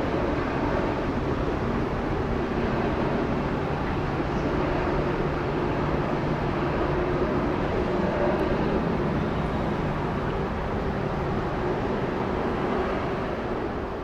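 Steady rumble of a Boeing 787-9's jet engines, even throughout with a faint low hum in it.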